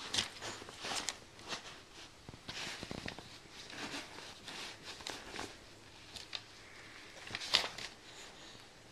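Irregular soft rustling and scuffing from a baby wiggling against a padded seat and towel and brushing a paper card, with one sharper click near the end.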